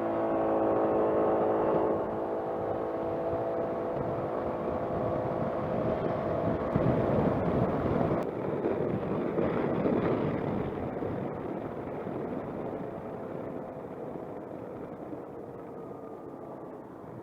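Suzuki Burgman 200 scooter's 200 cc single-cylinder engine pulling away, its pitch rising and then holding steady through the automatic transmission. A rush of wind noise builds in the middle, and the sound fades steadily toward the end.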